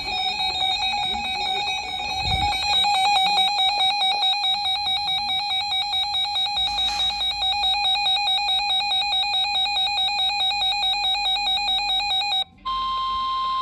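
Weather radio receiver's electronic alert alarm: a loud warbling tone that flutters several times a second, lasting about twelve seconds, signalling an incoming warning. After a brief break near the end, the steady 1050 Hz NOAA Weather Radio warning tone starts.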